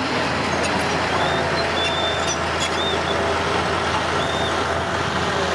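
Heavy construction vehicle's diesel engine running steadily, with a few brief high squeaks near the middle.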